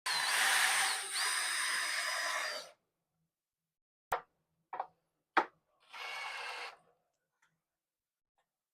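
Power drill driving screws into 1x6 top boards: a run of almost three seconds that briefly slows about a second in. Three sharp clicks follow, then a second, shorter run.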